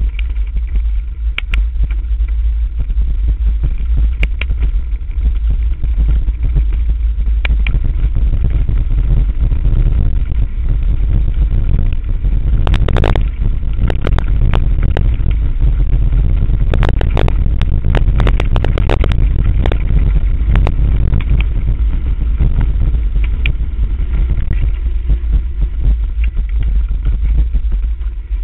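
Mountain bike riding fast downhill over a rough dirt trail, with wind rumbling on the bike-mounted camera's microphone. The frame and chain rattle and clatter over bumps throughout, most densely in the middle stretch.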